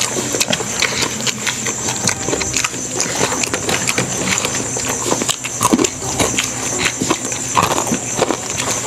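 Close-miked eating sounds: chewing and wet mouth clicks and smacks, repeated irregularly, as people eat rice and fried food by hand, over a steady high hiss.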